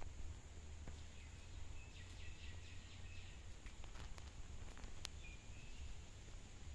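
Faint background ambience: a steady low hum and a thin high whine, with a few faint chirps about two seconds in and again near five seconds, and a couple of light clicks.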